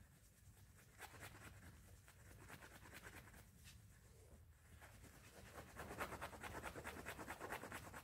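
Faint, quick back-and-forth rubbing of a dry cloth rag on an aluminum wheel, buffing off polish. The strokes grow louder and quicker about two-thirds of the way through.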